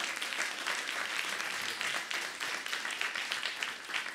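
Audience applauding, a steady round of many hands clapping.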